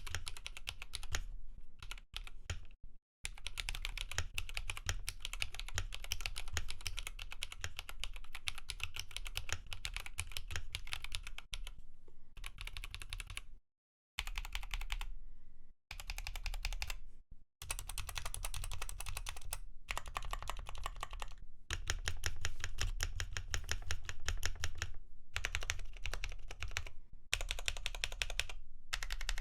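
Typing on a mechanical keyboard fitted with Bolsa Supply Zaku midweight linear switches: a fast, steady stream of keystrokes with a few brief pauses.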